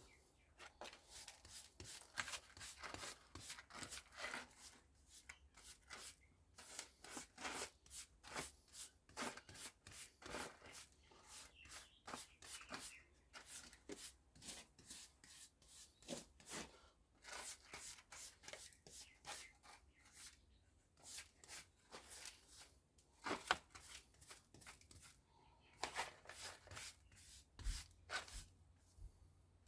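Faint, irregular scraping, clicking and rubbing of hand work on a microwave oven transformer's copper windings, a few strokes a second.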